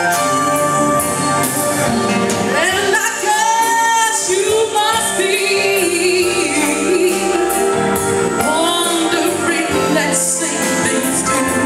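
Live band playing a song, with a woman singing the lead over electric guitars and drums keeping a steady beat.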